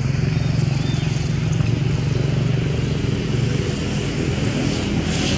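A motor vehicle's engine running steadily, a low even drone.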